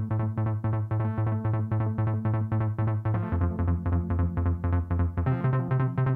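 Electronic dance music: a synthesizer pattern pulsing about four times a second over a held bass note that steps to a new pitch about halfway through and again near the end.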